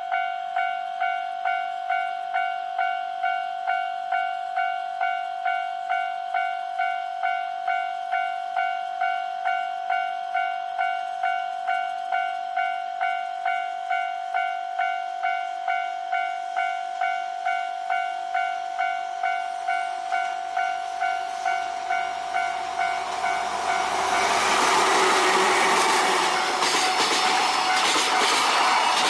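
Japanese railway level-crossing alarm ringing steadily, about one and a half dings a second. About 23 seconds in, an approaching train's passing noise swells up and drowns it out.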